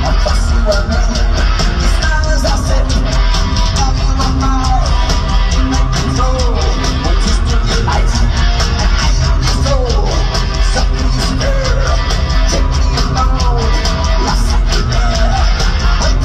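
A heavy metal band playing live at concert volume: distorted electric guitars and drums under a lead vocal, heard from the audience.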